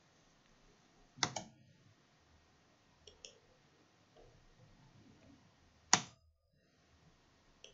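Computer mouse button clicks: two sharp clicks, about a second in and about six seconds in, with two faint quick clicks in between.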